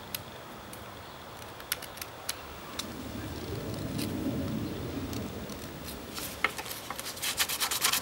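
A knife blade whittling a hardwood handle, with scattered sharp clicks and scrapes as shavings are cut and a low rustling swell in the middle. Near the end, sandpaper starts rubbing the wood in quick, regular strokes.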